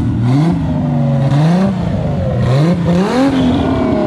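Car engine blipped from idle several times, its pitch sweeping up and dropping back with each rev.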